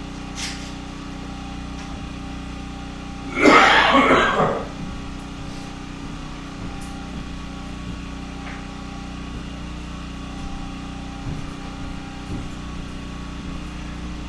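Steady hum of a running generator, with one loud noisy burst lasting a little over a second about three seconds in.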